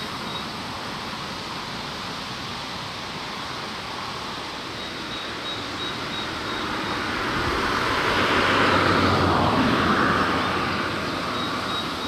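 Steady noise of road traffic, swelling as a vehicle passes about eight to ten seconds in.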